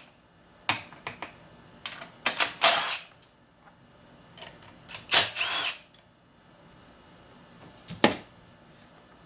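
Hand ratchet wrench clicking in several short bursts as 10 mm bolts are worked loose, with one sharp metal knock about eight seconds in.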